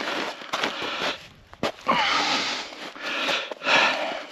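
Axe splitting firewood: one sharp strike on the wood about a second and a half in, with heavy, hissing breaths from the effort around the swings.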